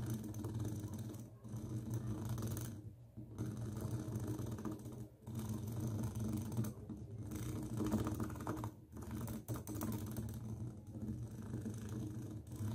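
Green plastic comb's teeth scratched and strummed with the fingers right at the microphone. It makes rapid fine clicking in runs of one to two seconds with brief pauses between. A steady low electrical hum lies under it.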